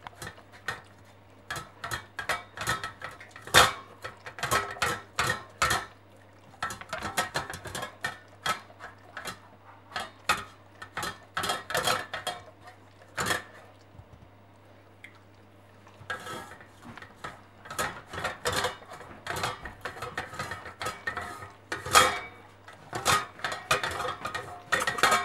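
A cat eating from a stainless steel bowl held in a wire stand: irregular metallic clinks and rattles of the bowl, in clusters, with a short pause a little past halfway.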